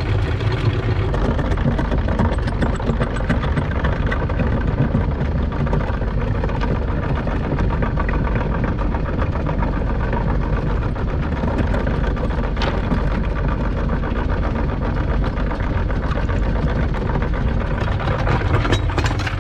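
Electric anchor windlass running steadily, hauling the anchor chain aboard.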